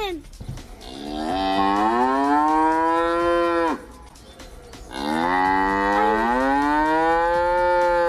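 A cow mooing twice, two long moos of about three seconds each, the pitch climbing slightly through each and dropping off at the end.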